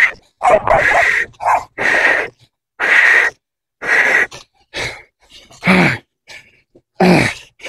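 A man breathing hard from exertion: loud, harsh gasps roughly once a second, turning into falling groans near the end.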